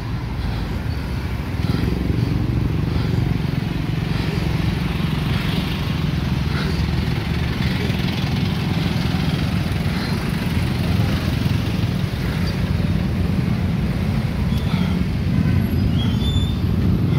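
Street traffic heard from a bicycle: motorcycle and car engines running close by in slow traffic, a steady low rumble.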